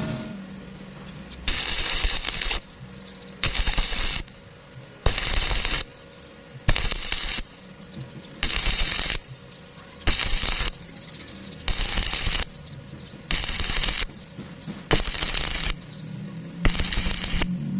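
Electric arc welding in short stitch bursts: about ten crackling arcs, each under a second long and coming roughly every second and a half, with a low steady hum between them.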